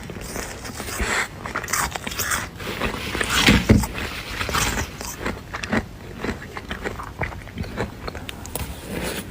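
Close-up crunching and scraping of flaky freezer frost being bitten and chewed, a dense run of crisp crackles with a louder crunch about three and a half seconds in.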